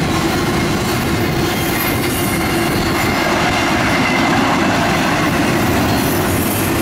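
Double-stack container well cars of a CSX intermodal train rolling past, a steady loud rumble of wheels on rail with a faint steady high tone over it.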